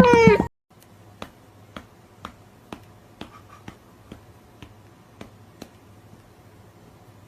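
Music cuts off just after the start. Then come faint, sharp clicks at an even pace, about two a second, over a low steady hum, stopping about a second and a half before the end.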